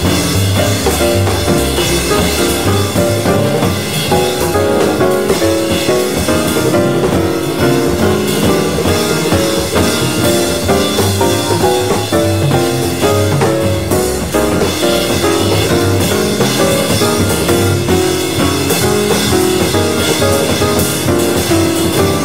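Recorded jazz with a drum kit, playing continuously at a steady level.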